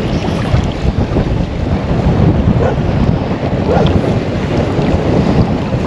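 Wind buffeting the microphone over the steady wash and lapping of shallow river water right at the camera.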